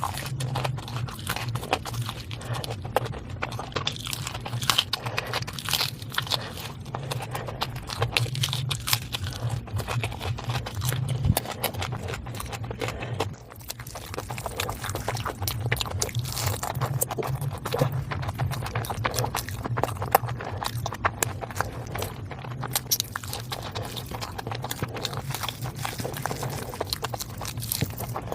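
Close-miked eating: wet chewing, smacking and crunching of food in the mouth, irregular and continuous, over a steady low hum. It breaks off briefly about thirteen seconds in, then resumes.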